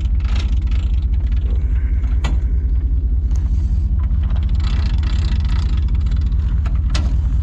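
A truck's engine running with a steady low rumble, and two sharp clicks, about two seconds in and near the end.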